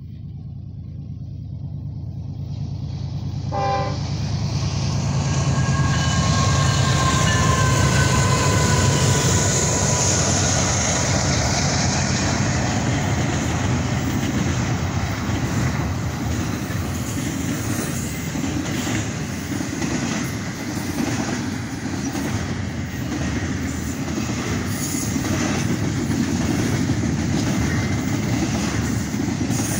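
Union Pacific diesel freight locomotives approach and pass, their engine rumble growing louder over the first few seconds. The horn gives a short toot and then a longer blast whose pitch drops as the locomotives go by. Then double-stack intermodal container cars roll past with steady wheel clatter and rail noise.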